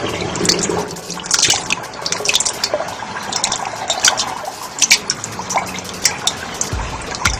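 Water running and splashing, with many small sharp drips and splashes, and a low rumble just before the end.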